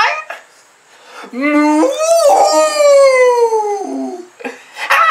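A dog howling: one long call, about three seconds, that starts about a second in, rises and then slides down in pitch.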